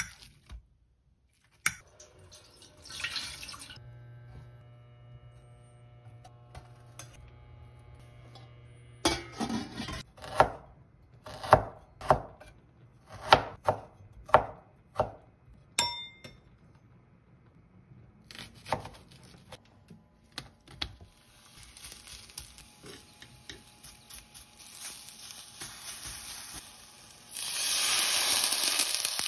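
A chef's knife slicing ginger on a cutting board, about one chop a second. Later a steady hiss, and near the end a loud hiss as water is poured from a measuring jug into a hot frying pan of charred green onions.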